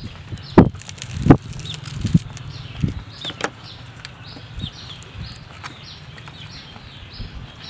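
A few short thumps and crackles in the first few seconds as hands break apart a piece of charred grilled snake, over small birds chirping repeatedly in the background.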